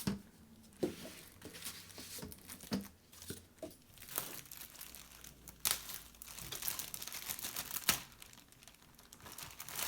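Packaging crinkling and rustling as a laptop is unwrapped, with scattered sharp crackles and handling clicks at irregular moments.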